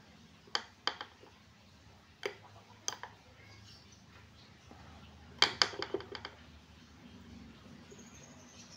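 Sharp metallic clicks and taps of steel pliers and pins against a drilled steel jig plate while wire is bent. A few single clicks come in the first three seconds, then a quick run of about six a little past the middle.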